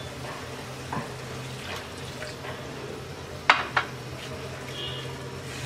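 Chopped cabbage simmering in a nonstick kadai just after water was added, a wet sizzle over a low steady hum. A wooden spatula knocks and scrapes against the pan a few times, loudest about three and a half seconds in.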